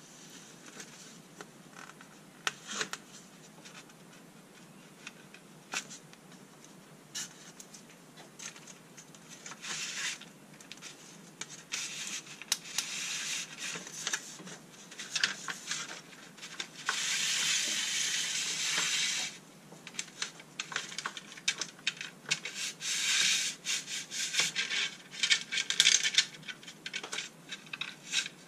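Adhesive-backed LED strips being peeled off an aluminium batten's backing plate: repeated scratchy tearing pulls amid many sharp clicks, the longest pull lasting about two seconds a little past halfway.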